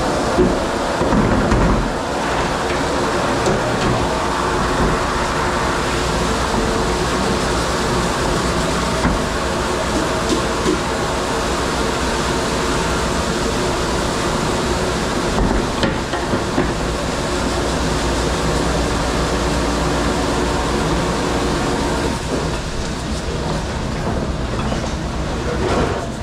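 Steady din of a commercial rack-conveyor dishwasher running, its pumps and sprays making a constant rumbling wash with a hum, and a few short clatters of metal pans and racks scattered through.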